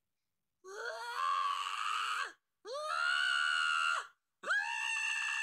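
Cat yowling loudly: three long, drawn-out calls, each rising in pitch at its start, with short pauses between them.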